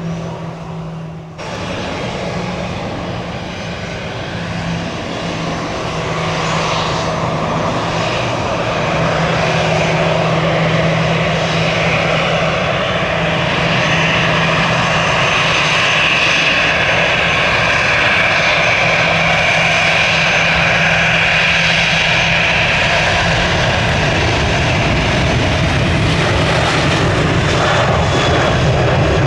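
Jet airliner engines running loud, growing louder over the first several seconds and then holding steady, with a high whine over a low rumble.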